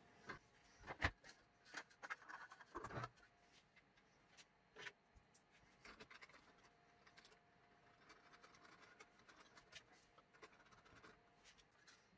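Handling noise from a plastic filament spool being lifted and fitted onto its spool holder: faint scattered clicks and knocks, the sharpest about a second in and several more between two and three seconds, then fainter rubbing.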